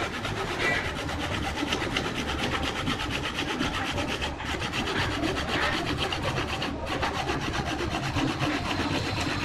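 Gloved hand pressed against an areca palm root vase spinning on a wood lathe, sanding or rubbing the wood: a steady rasping rub with a fast, even pulse, and the lathe motor running underneath.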